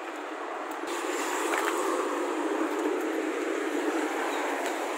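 Road traffic: motorcycles and other vehicles passing on a city street, heard as a steady rush that grows a little louder over the first couple of seconds.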